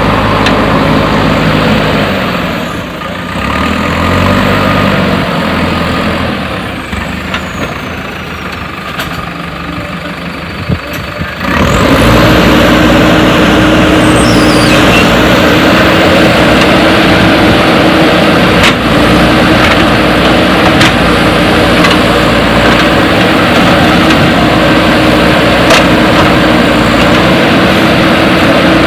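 A JCB 3DX backhoe loader's diesel engine running at low speed, then rising suddenly to a loud, steady high-revving run about eleven seconds in, with a few sharp clicks later.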